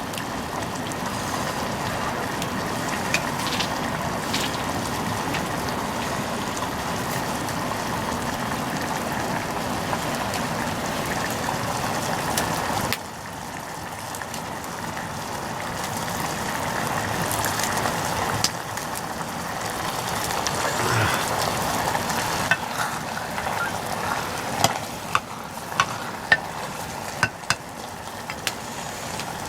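Food sizzling as it fries in a pan. The sizzle drops suddenly about halfway through, then builds again. Several sharp clinks come near the end.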